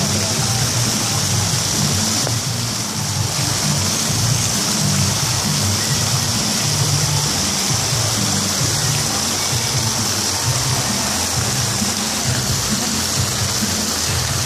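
Background music with a shifting bass line, over a steady rushing hiss of water from a pool fountain jet.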